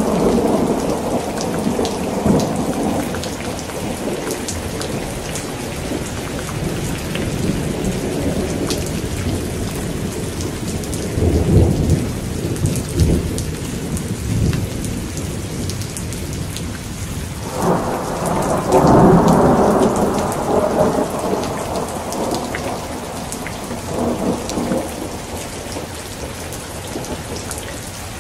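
Thunderstorm: steady rain hissing throughout, with rolling thunder. A rumble fades over the first few seconds, another rolls in around the middle, and the loudest peal breaks suddenly a little past halfway and rumbles on for several seconds before dying away.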